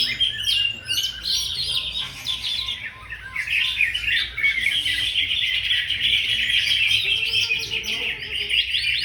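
Green leafbird (cucak ijo) singing a fast, continuous stream of varied chirping notes, easing briefly about three seconds in.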